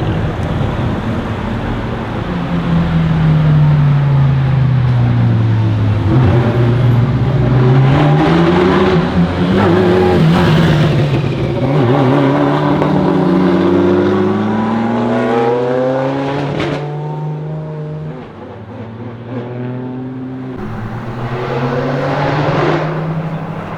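Ferrari F40 LM's twin-turbo V8 through a straight-pipe exhaust: the engine note falls, then climbs over several seconds with sharp crackles from the exhaust, and settles into steadier low running about two-thirds through before a short rise near the end.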